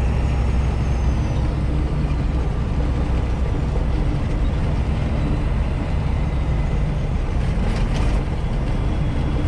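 Semi truck's diesel engine and road noise inside the cab while driving on the highway. The engine's low note drops off about two seconds in, and there is a brief hiss near the end.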